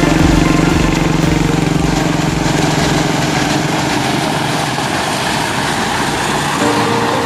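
An engine running steadily, its low hum easing somewhat after about two seconds.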